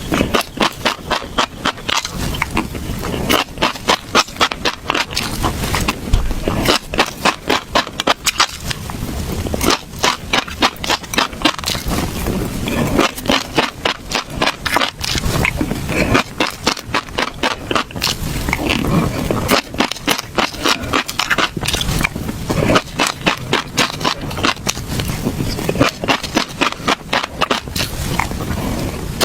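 Close-miked chewing of crisp seeds: rapid, irregular crunching and crackling as the seeds break between the teeth.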